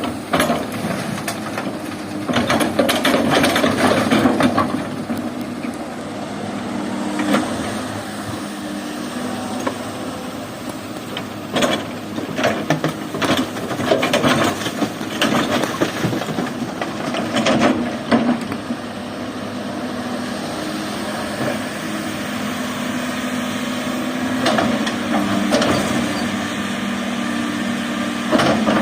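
Excavator diesel engine running steadily, with repeated sharp knocks and clatter from the work.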